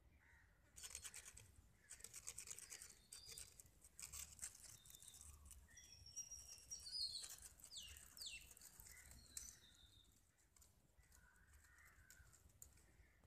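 Faint, quick scratchy rustling of a thin stick brushed and flicked over dry dirt and twigs. A few short bird chirps come near the middle.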